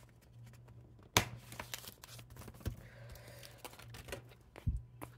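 Paper planner inserts shuffling and rustling as they are handled at a ring binder, with a sharp click about a second in and a smaller knock near the end.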